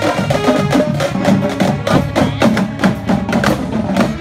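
Marching band playing: a drumline of marching snare drums beating a fast, dense rhythm, with brass and saxophones sounding underneath.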